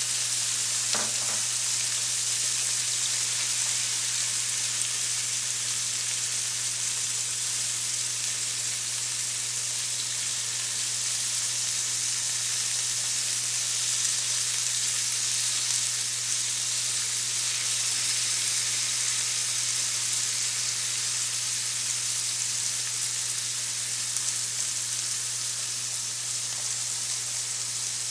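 Spicy marinated pork slices sizzling steadily in a hot frying pan with onion, garlic and carrots, with a light tap of chopsticks about a second in. A steady low hum runs underneath.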